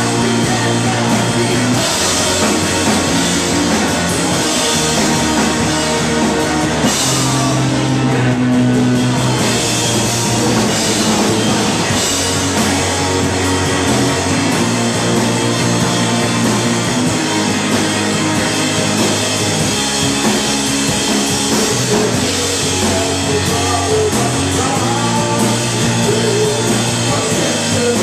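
Live rock band playing loud: electric bass, electric guitar and a drum kit, with held bass notes changing every second or two.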